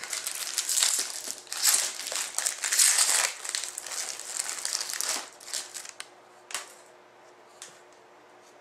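Hockey trading card pack wrapper being torn open and crinkled by hand, a dense crackling for about five seconds, then a few faint clicks as the cards come out.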